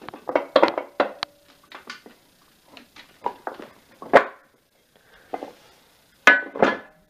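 Metal clicks and clunks from a CAP Barbell adjustable weight bench being handled and set to another position. There are light irregular knocks throughout, a louder clank about four seconds in and two more near the end, some ringing briefly.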